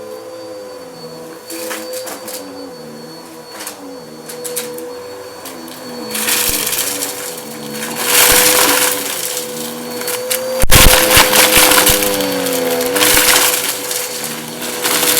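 Bissell vacuum cleaner running over a shag rug, its motor whine bending up and down in pitch as it is pushed back and forth. Loud crunching and crackling of debris being sucked up, heaviest about eight and eleven seconds in.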